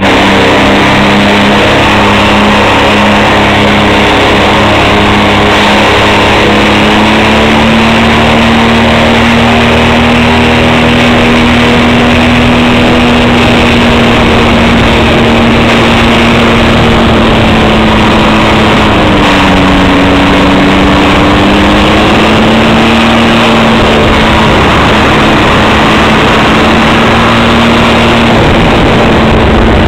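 Ultralight trike's engine and pusher propeller running loudly while taxiing, the engine note steady, dipping in pitch about two-thirds of the way through and then coming back up.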